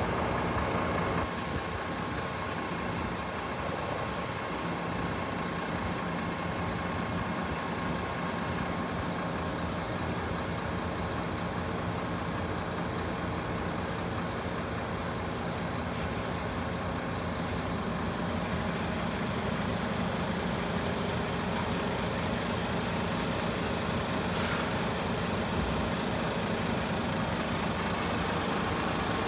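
Road vehicles idling in a queue at lowered level-crossing barriers: a steady engine hum with general traffic noise, growing slightly fuller past the halfway point.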